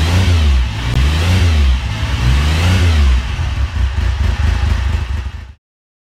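Motorcycle engine revved up and down several times, each blip rising and falling in pitch over about a second, then cutting off suddenly near the end.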